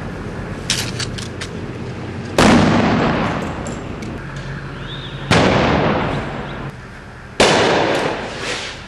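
Three loud bangs a few seconds apart, each sudden and then echoing away over a second or two, typical of blasts fired during a night army raid. A few small clicks come about a second in, before the first bang.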